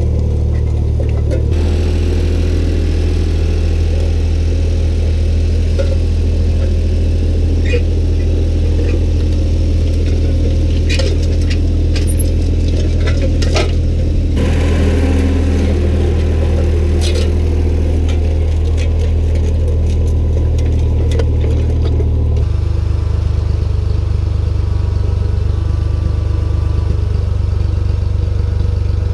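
Ford 4000 tractor engine running steadily while pulling a disc harrow and drag. Its note shifts abruptly a few times, and a few sharp clicks and rattles come through around the middle.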